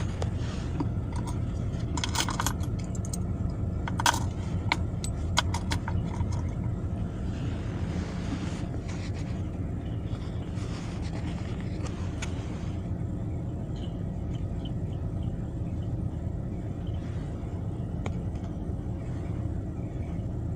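Car engine idling, heard from inside the cabin as a steady low rumble. Short metallic clicks and clinks come now and then over the first half, then fewer.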